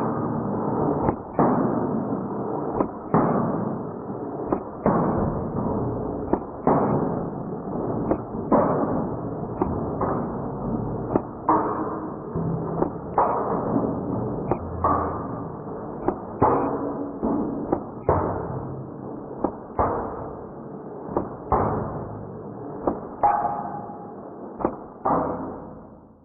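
Mini automatic electric airsoft gun firing at a pyramid of drink cans: irregular sharp hits every second or two over a dense, continuous clatter, sounding muffled with no high end.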